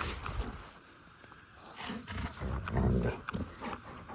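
A dog growling in play, with a low growl from about two seconds in that lasts about a second, among smaller scuffling sounds.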